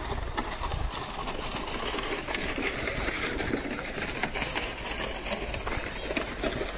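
City street ambience: a motor vehicle's engine running amid steady traffic noise, with scattered short clicks.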